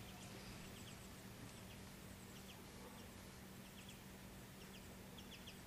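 Near silence with faint, short bird chirps repeated every second or so, over a low steady hum.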